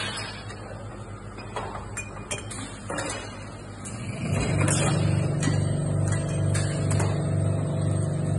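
Glass-bottle filling and labelling line running: scattered clicks and clinks of bottles and machine parts over a low machine hum. About four seconds in, a motor on the line starts and runs with a louder steady hum and a slight regular pulse.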